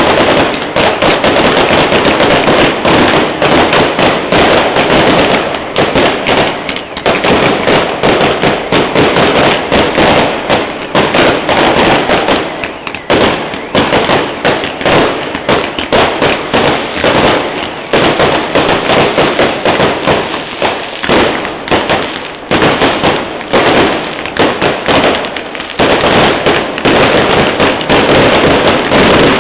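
Fireworks going off in a dense, continuous barrage of rapid cracks and bangs, easing briefly a few times before picking up again.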